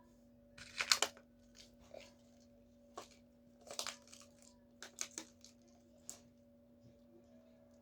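Slime being squished and stretched by hand, a string of short noisy bursts, the loudest about a second in. A steady low hum runs underneath.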